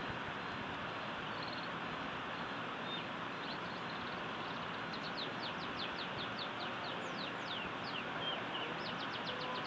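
Canary practising its song, a bird still learning: faint rapid trills of short falling notes starting a few seconds in and running on in quick runs. A steady hiss of background noise is louder than the song throughout.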